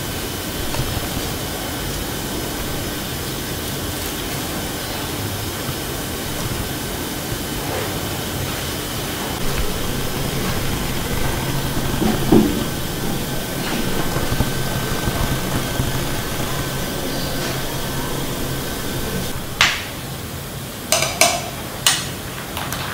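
A metal ladle clinking sharply against ice cubes and a glass jar a few times near the end, over a steady background hiss, with a single dull knock about halfway through.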